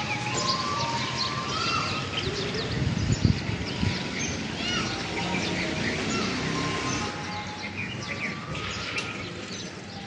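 Many birds chirping, a dense run of short calls throughout, with two low thumps about three and four seconds in.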